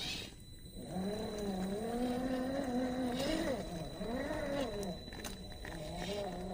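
The brushed 550 electric motor and gear drive of an RC rock crawler whining, its pitch rising and falling with throttle. It drops out briefly near the start.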